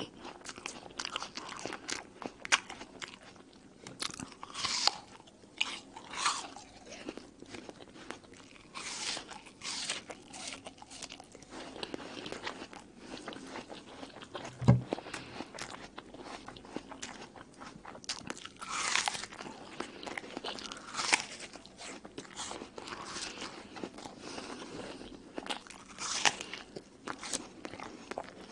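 Crisp crunching bites of a red apple and chewing between them, close to the microphone, as the apple is eaten down around its core. There is a single dull thump about halfway.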